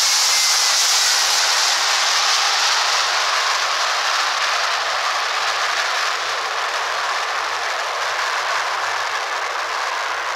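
Jet airliner engines at takeoff power, a loud steady rushing noise with a faint whine, slowly fading as the plane moves away.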